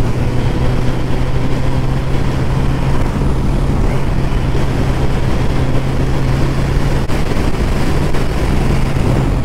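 Motorcycle engine running at a steady cruising speed, one even engine note under constant road noise.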